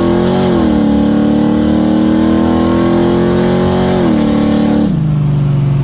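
1969 Chevrolet Camaro SS's 454 big-block V8 pulling hard under acceleration, heard from inside the cabin. The engine note climbs slowly, drops about four seconds in, then falls again near the end and settles into a lower steady drone.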